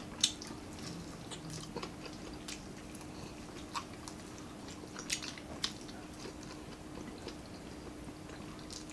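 Eating sounds of people chewing and picking at grilled fish and fried chicken with their fingers: quiet mouth smacks and scattered small clicks, the sharpest one just after the start. A faint steady hum runs underneath.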